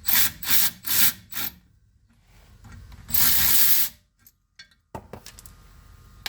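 Hand-tool scraping at the opened differential: four quick rasping strokes, about two a second. A hiss of under a second follows about three seconds in, and a single sharp click near the end.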